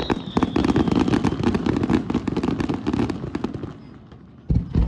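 Fireworks finale: dense crackling from many bursting shells, with a high whistle that slowly falls and fades in the first second. The crackle thins out near the end, then a heavy boom lands.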